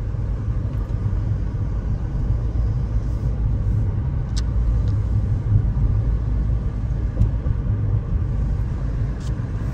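Steady low road rumble of a moving car heard from inside the cabin: tyre and engine noise while driving, with a few light ticks.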